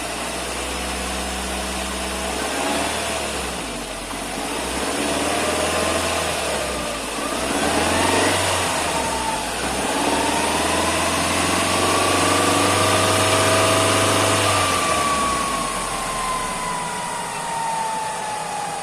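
Nissan Almera N16 engine and manual gearbox running with the front wheels hanging free, revving up and down through the gears, with a gear whine that rises and falls in pitch with speed. About 15 s in the engine sound drops away and the whine slowly falls as the wheels run down. The owner hears the hum coming from the gearbox, the front hub bearings having already been replaced.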